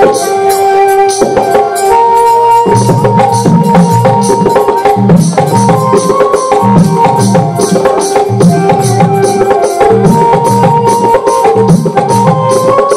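Live kirtan music: a keyboard holding a melody over a quick, steady high beat. A khol barrel drum comes in loud and low about three seconds in and keeps playing a rolling pattern.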